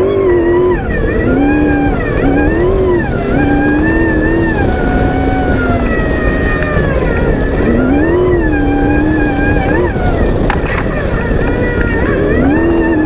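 V8 off-road race buggy's engine heard from on board, its revs climbing and dropping again and again as the throttle is worked, over a constant rush of wind and driving noise. A single sharp crack stands out about ten and a half seconds in.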